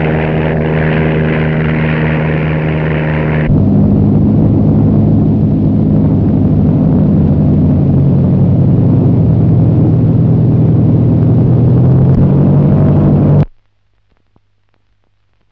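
1930s biplane's piston engine and propeller running steadily in flight. The tone changes abruptly about three and a half seconds in, drifts slightly in pitch, then cuts off suddenly near the end.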